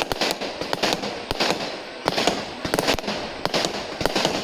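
Aerial fireworks going off: a quick series of sharp bangs, about a dozen, with crackling between them.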